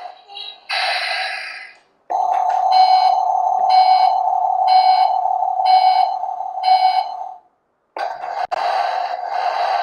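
Toy transporter truck's electronic sound effect from its small built-in speaker: a steady buzzing tone with a beep repeating about once a second. It stops briefly at about seven and a half seconds and starts again about half a second later.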